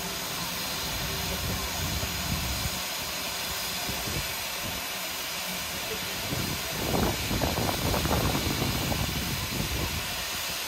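Steady hiss of steam escaping around the cylinders and front end of British Railways Standard Class 2 2-6-0 locomotive No. 78018 as it stands in steam. The sound grows rougher and a little louder from about two-thirds of the way in.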